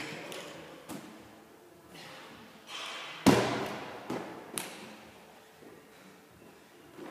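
A 9 kg medicine ball knocking against the wall on a wall-ball throw. About three seconds in it is dropped onto the gym floor with a loud thud that echoes, and two smaller knocks follow as it bounces.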